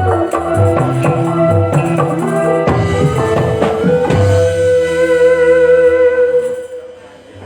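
Music with drums and other instruments, closing on a long held note that dies away about six and a half seconds in.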